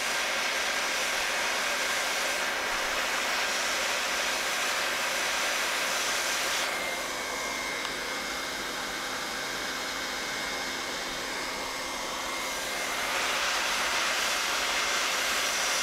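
Samger 1600 W hot-air plastic welding gun running, its fan blowing a steady rush of hot air while HDPE filler rod is welded into a seam. For several seconds in the middle it is a little softer, with a faint high whine.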